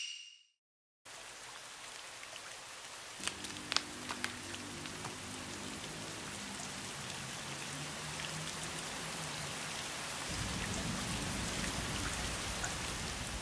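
Steady rain hissing evenly, starting about a second in, with a few sharp drops or splashes about three to four seconds in, and turning heavier near the end.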